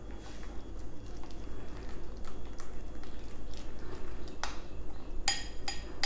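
A utensil stirring batter in a bowl, with light clicks and scrapes, then a few sharp clinks of the utensil against the bowl that ring briefly near the end.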